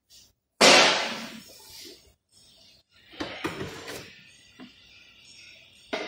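Metal tools and engine parts clanking during an engine teardown: one loud clatter about half a second in that rings on for about a second, then a run of lighter knocks and clicks.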